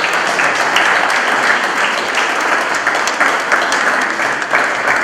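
A small audience applauding, many hands clapping steadily at the close of a piece.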